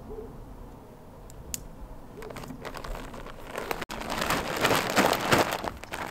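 Garden compost being tipped out and spread over cardboard on a vegetable bed: quiet at first, then a dense rustling and scraping that starts about two seconds in and gets louder about four seconds in.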